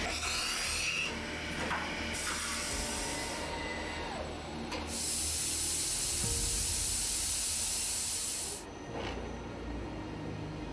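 Voortman V633 beam drilling, milling and marking machine at work on a steel beam: spindle whirring that glides up and down in pitch over a steady hiss. About five seconds in a loud hiss sets in, lasts nearly four seconds and cuts off suddenly.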